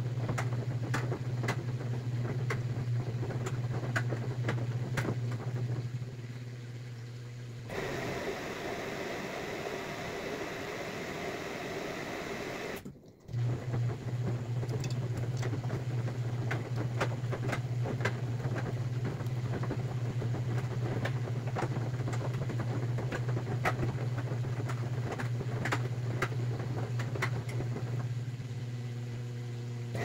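Samsung Grande AI front-loading washing machine running mid-wash: a steady low motor hum with light clicks. The hum stops for about five seconds in the middle, where a softer rushing noise takes over, then comes back.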